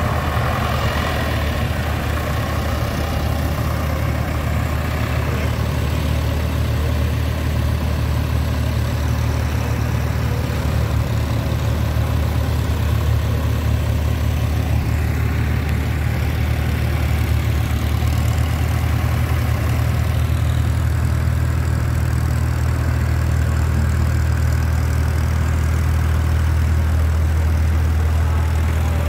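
A large engine running steadily at a constant speed, a deep even hum that doesn't change in pitch or loudness.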